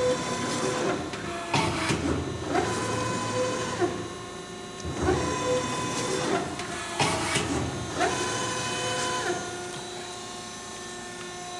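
Euromac CNC hydraulic punch running: a steady hum from its hydraulic unit, broken by sharp mechanical clunks a second or two apart. The clunks stop near the end, leaving only the hum.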